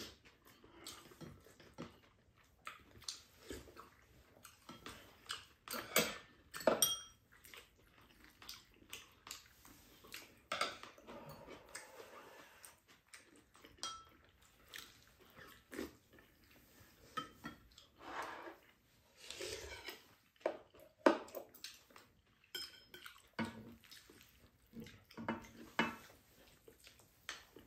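Spoons and chopsticks clinking and scraping against ceramic bowls and a pan of fried rice while eating, in irregular short clicks with brief gaps between them.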